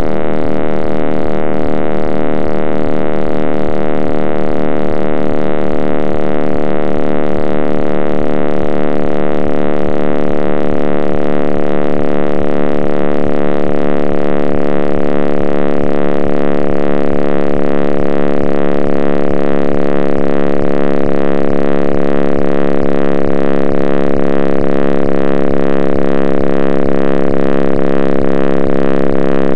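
Loud, dense electronic drone of many sustained tones layered together, shifting slowly, with a quick regular pulsing low underneath.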